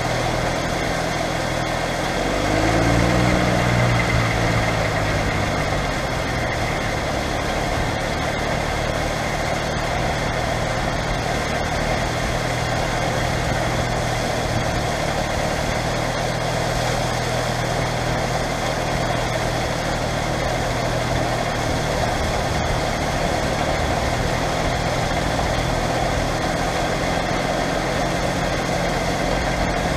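JCB Fastrac 3230's Cummins diesel engine running steadily under load. About two seconds in, its revs and loudness briefly rise, then ease back by about six seconds.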